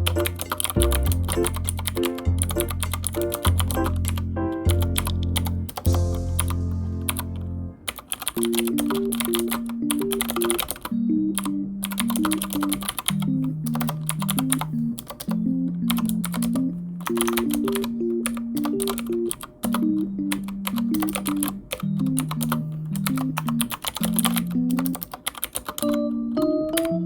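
Rapid typing on a computer keyboard, a dense run of keystroke clicks, over light background music with a simple, slow melody.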